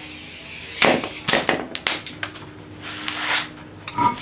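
Irregular sharp clicks and knocks, about eight in four seconds, from hands working at a car's raised front wheel as it is taken off the hub.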